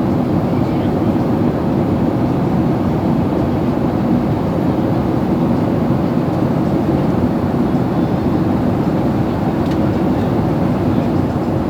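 Steady cabin noise of a Boeing 737 airliner in cruise: a constant low rush of jet engines and airflow heard from inside the passenger cabin.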